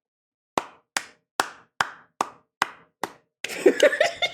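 One person clapping hands into the microphone, seven single claps at a steady pace of about two and a half a second, recorded as raw material for a homemade applause sound effect. Near the end the clapping gives way to a loud burst of voice.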